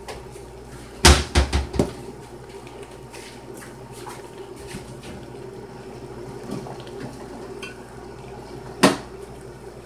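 A pot of ground meat and vegetables starting to cook on a portable electric burner: a faint, steady sizzle with a constant hum. A short clatter of knocks comes about a second in, and one more knock near the end.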